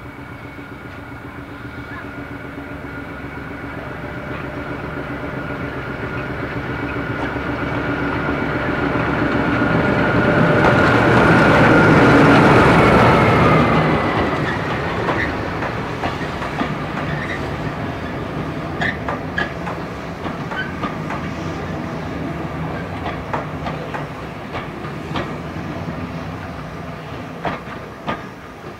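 BR Class 14 diesel-hydraulic shunter with a Paxman Ventura V6 diesel engine, approaching and passing close by under power. Its engine note grows louder and drops in pitch as it goes by, about twelve seconds in. Then the coach it hauls rolls past, its wheels clicking and knocking over the rail joints.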